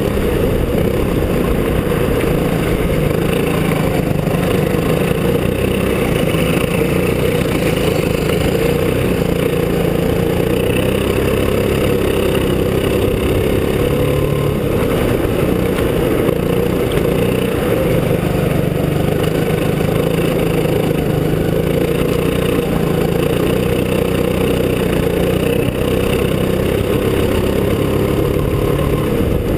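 Go-kart engine running steadily, heard on board the moving kart. The pitch shifts slightly now and then but never rises or falls sharply.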